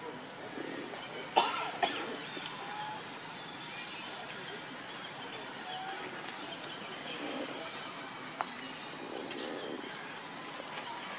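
Forest ambience: insects droning on one steady high note, with two sharp snaps about a second and a half in and a small click near the end.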